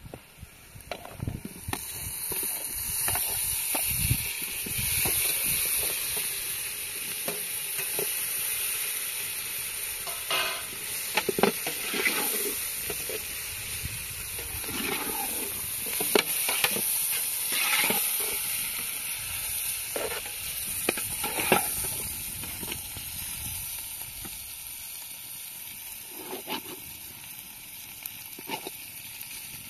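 A steady high sizzling hiss begins about a second and a half in, with scattered knocks and clicks throughout.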